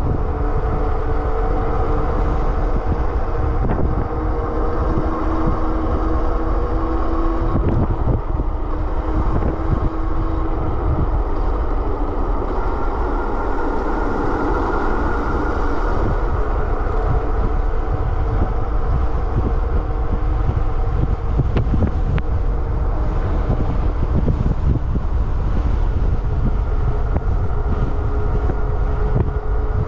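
Super 73 RX electric bike riding at speed on pavement: strong wind buffeting on the microphone over a steady hum from the tyres and drivetrain, the hum shifting in pitch a few times as the speed changes.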